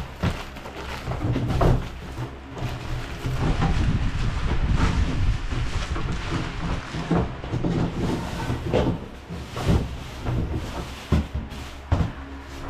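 Plywood panels of a folding cage being handled and folded: irregular wooden knocks, clatters and scrapes against the metal edging, again and again.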